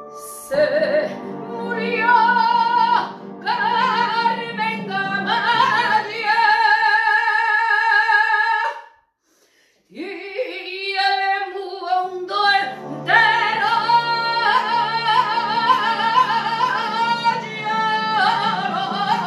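A woman singing a Spanish copla in full voice, holding long notes with a wide vibrato over recorded accompaniment. Everything stops for about a second near the middle, then she comes back in on a rising note.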